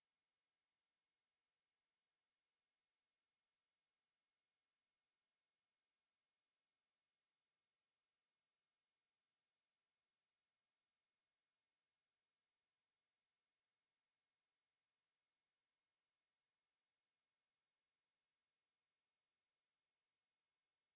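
Pure 10614 Hz sine-wave test tone, one very high, steady whistle-like pitch that does not change.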